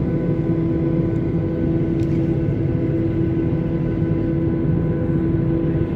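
Steady cabin drone of a Boeing 737-800's CFM56-7B engines at taxi power, heard from inside the cabin over the wing: an even rumble with a steady hum on top.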